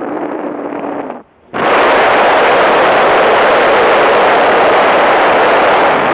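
Wind rushing over the microphone of a hang glider's onboard camera in flight. It cuts out for a moment a little past a second in, then comes back much louder and harsher, overloading the microphone.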